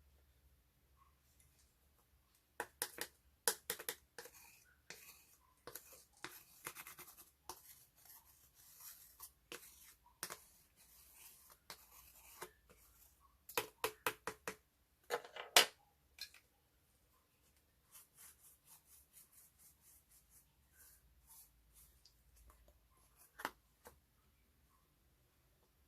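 Clear slime being handled and mixed with makeup: irregular sticky clicks, pops and crackles. They come thick in the first half, with the loudest pop a little past the middle, then thin out into faint scattered clicks.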